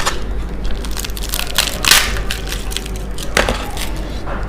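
Crisp fried food, pakora or papad, crunching loudly as it is bitten and chewed close to the microphone. There are several crunches, the loudest about two seconds in.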